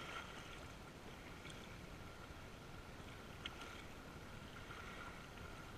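Small waves lapping against a rocky lakeshore, with wind on the microphone, faint and steady. A single faint click comes about three and a half seconds in.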